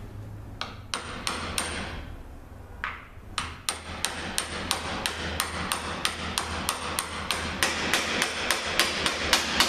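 Small hammer tapping a steel bushing driver, metal on metal, to drive a new bushing into a ZF 6HP26 automatic transmission's clutch drum: a few knocks, a short pause about two seconds in, then steady taps at about three a second. The bushing is being seated until it meets a second driver underneath, which sets its height.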